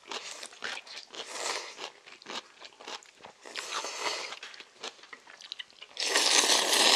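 Crisp crunching of chonggak (ponytail radish) kimchi being bitten and chewed, with slurps of ramyeon noodles; a long, loud noodle slurp near the end is the loudest sound.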